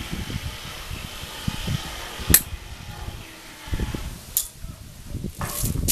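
Hands and a small hand tool working at the rim of a rubber car tyre, with low, irregular rustling and handling noise. A sharp click comes a little over two seconds in, and a lesser one about two seconds later.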